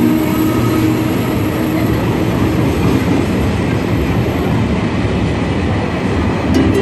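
Train running on rails, a loud steady rumble of wheels on track, with faint light clicks near the end.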